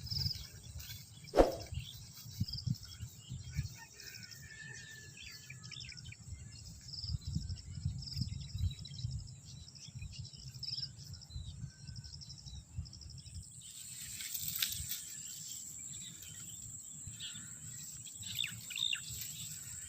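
Rural outdoor ambience: scattered bird chirps and insects over a low rumble, with a single sharp knock early and a steady high insect drone coming in about two-thirds of the way through.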